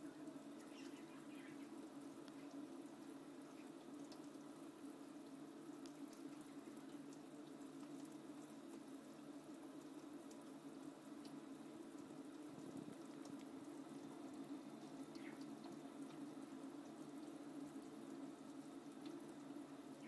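Kitchen tap running in a thin stream into a stainless-steel sink, a faint, steady splashing of water.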